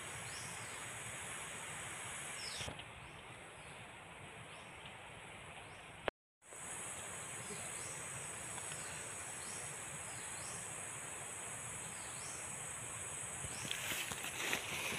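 Steady high-pitched insect drone with short falling chirps repeating about once a second. The sound cuts out briefly about six seconds in, and a few sharp knocks come near the end.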